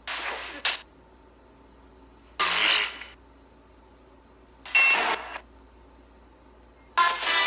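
Spirit box sweeping through radio stations: four short bursts of static and broken voice fragments, about two and a half seconds apart, one of them taken for the words "He's nice". A faint, evenly pulsing high tone runs underneath.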